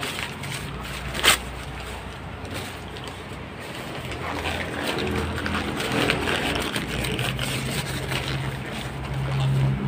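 Workshop handling noise as a motorcycle rear shock absorber is wrapped in a rag and taken out of a bench vise: a sharp knock about a second in, then rag rustling. A low hum grows louder near the end.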